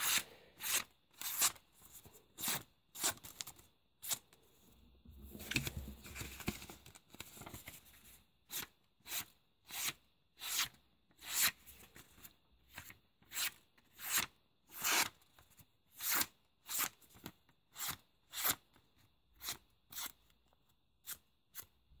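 Freshly sharpened Victorinox Spartan pocketknife blade slicing through sheets of paper in short, crisp cuts, about two a second, with a few seconds of paper rustling about five seconds in. The clean cuts are the sign of a razor-sharp edge.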